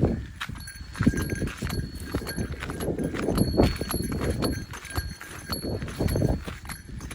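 Footsteps on a mountain trail with a small bell jingling in short rings as the hiker walks, over wind buffeting the microphone.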